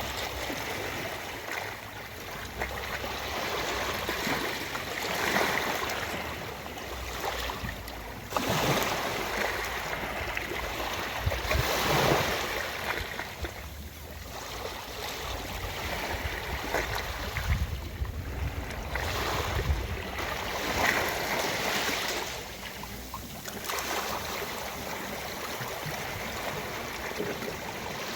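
Ocean waves washing onto a beach, the surf swelling and falling back every few seconds.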